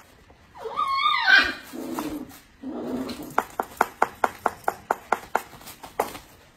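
A dog's whining call that sweeps up and down for about a second, followed by two lower sounds, then a quick run of about ten sharp, even clicks at roughly five a second.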